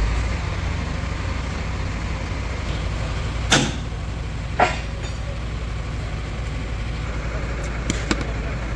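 A steady low mechanical rumble, like an engine running, with two sharp knocks about a second apart near the middle and a pair of lighter clicks near the end.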